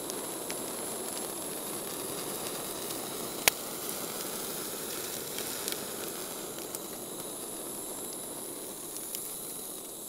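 Handheld pocket gas torch burning with a steady hiss as its flame sears marinated mackerel. There is one sharp click about three and a half seconds in, and the hiss drops away right at the end.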